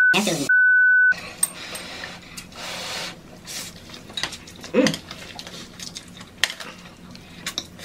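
A censor bleep, one steady beep of about half a second, about half a second in. After it come chopsticks and a fork clinking and scraping in a tray of instant noodles, with the sounds of people eating them.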